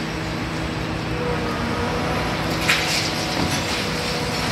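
Hitachi Zaxis 350 high-reach demolition excavator's diesel engine running steadily under hydraulic load while its crusher jaws work the concrete, with a short sharp crunch about two-thirds of the way through. The engine note sags slightly near the end.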